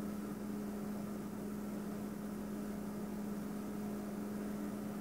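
A steady low hum over a faint hiss, unchanging throughout, with no distinct knocks or clicks.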